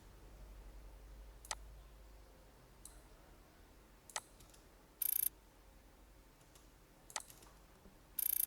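Computer mouse clicking, a few separate sharp clicks spread out over several seconds, with two louder, short crackly clicks, one midway and one near the end.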